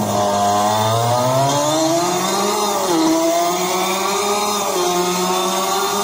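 Emulated two-cylinder 250 cc two-stroke engine sound from the 2Electron Emula electric motorcycle's engine-sound system, played through its on-board subwoofer on a dynamometer. The engine note climbs in pitch, drops briefly about three seconds in as if shifting up a gear, then holds and rises again.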